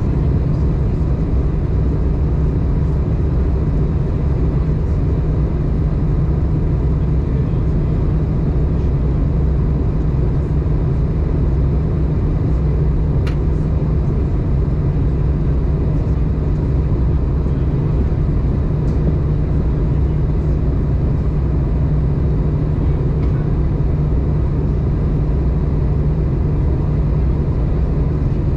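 Steady low cabin roar inside an Airbus A320 in flight: engine and airflow noise heard through the fuselage, with a faint steady whine. A single faint click about halfway through.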